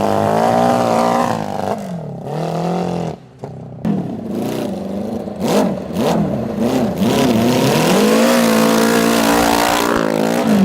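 A 650cc motorcycle engine in a converted John Deere riding mower revving hard, its pitch climbing and falling again and again. It drops away briefly about three seconds in, then holds at high revs near the end.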